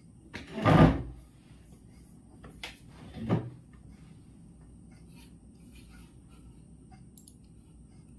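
A loud thump, like something knocked or set down, about half a second in. Two softer knocks follow between two and a half and three and a half seconds in, over a faint steady background with a thin high tone.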